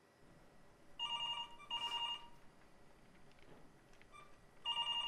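Telephone ringing in a double ring: two short rings about a second in, then another pair near the end.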